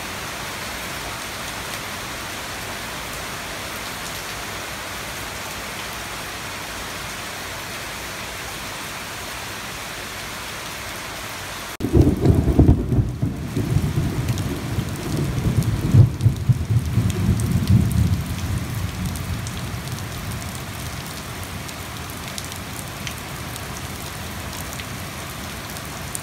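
Heavy rain falling steadily as an even hiss. About twelve seconds in, the sound changes to rain splashing onto flooded pavement, and a loud, uneven low rumble comes in for several seconds before fading.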